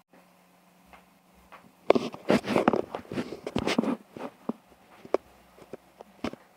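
Handling noise from the phone as it is moved: rustling and clicking against the microphone, dense for about two seconds starting two seconds in, then a few scattered clicks.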